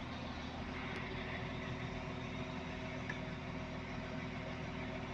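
An engine idling steadily, a low, even hum with no changes in speed.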